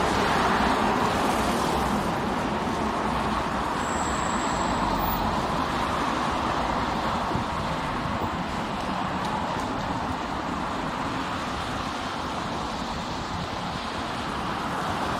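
City street traffic: cars passing through an intersection, a steady wash of engine and tyre noise.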